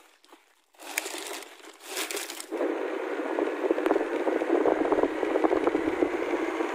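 Thin plastic bags and wrappers crinkling as they are handled, then a steady noise for the last few seconds.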